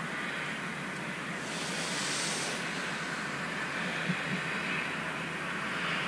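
Steady hissing noise, with a brief louder, brighter hiss about a second and a half in.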